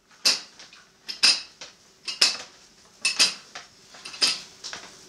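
Metal plates on a dumbbell clinking against each other with each lift, a sharp clink about once a second with lighter clinks in between.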